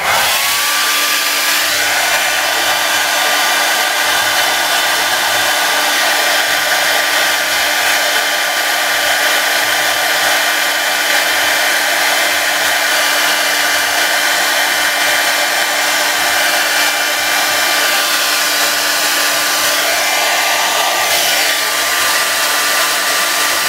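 Handheld hair dryer switched on at its hot, high setting. Its whine rises briefly as it spins up, then it runs steadily: a rush of air with a steady whine.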